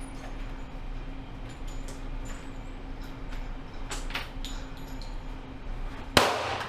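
A single pistol shot about six seconds in, sharp and with a short ringing tail. Before it, a few faint clicks and knocks over a steady low hum.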